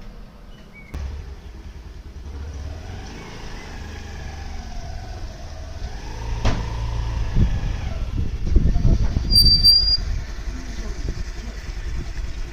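Low, steady rumble of a vehicle, with a sharp knock about halfway through and a short high-pitched beep a few seconds later.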